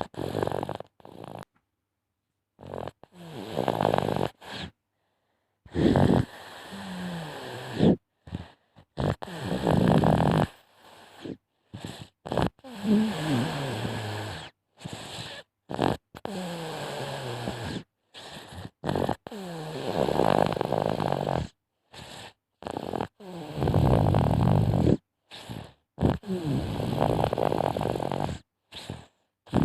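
A sleeping baby snoring: a string of rough, rattly breaths, each lasting a second or two, some sliding down in pitch, with sudden silent gaps between them.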